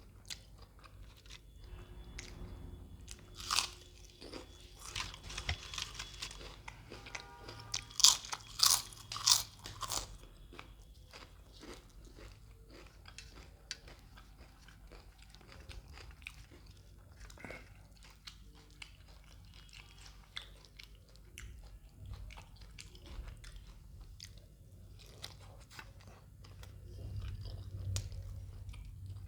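Close-miked person eating. There are loud, sharp crunching bites about three and a half seconds in and again around eight to ten seconds, followed by quieter, irregular chewing.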